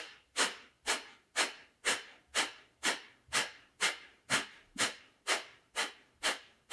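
Kapalbhati pranayama breathing: short, forceful exhales through the nose in a steady rhythm of about two a second.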